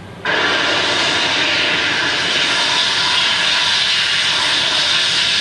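A loud, steady rushing noise, like a large engine or machine, that cuts in abruptly about a quarter of a second in and holds level throughout.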